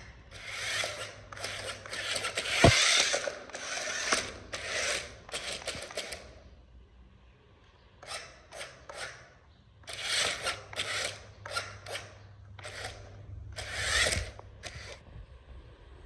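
Plastic toy parts clicking and rattling in irregular bursts, like a toy's ratcheting mechanism or gears being worked, with a sharp click about three seconds in and another near the end.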